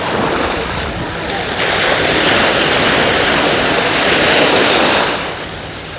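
Ocean surf washing in at the shoreline, a wave surging in louder about a second and a half in and ebbing away near the end.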